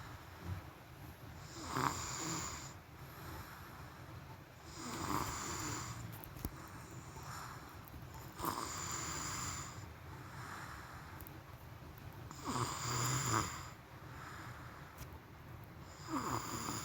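A person snoring in deep sleep, one snore on each breath about every three and a half seconds, five in all.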